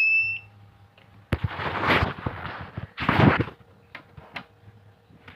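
A Microtek inverter's alarm beep, one high steady tone, cuts off within the first half second. Then come two loud noisy bursts of handling, knocking and scraping, each about a second long, and a couple of sharp clicks, as the blown fuse is being replaced.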